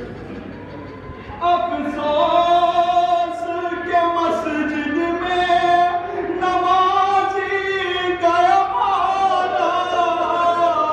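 A man reciting a noha, a Shia lament, sung unaccompanied into a microphone in long, held melodic lines. The voice comes in strongly about a second and a half in, after a softer stretch.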